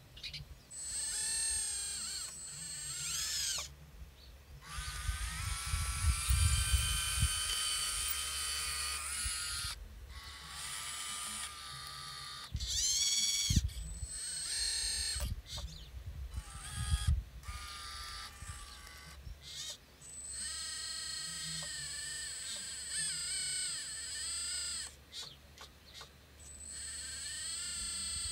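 Hydraulic RC excavator's pump whining, its pitch rising and falling and cutting in and out as the boom, arm and swing are worked, with a few low knocks along the way.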